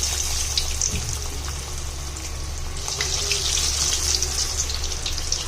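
Marinated chicken pieces frying in hot oil: a steady sizzling hiss with scattered crackles.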